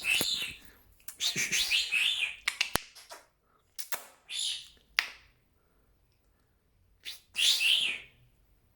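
Senegal parrot (youyou) chirping and calling in a series of short, high-pitched bursts with silent gaps between them, plus one sharp click near the middle.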